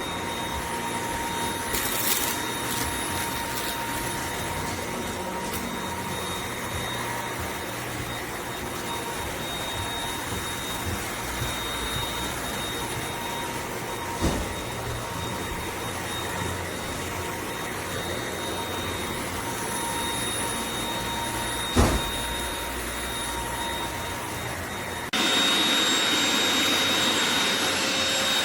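Eureka RapidClean Pro NEC280TL cordless stick vacuum running with a steady motor whine and a couple of light knocks. About 25 seconds in it abruptly steps up louder and higher-pitched.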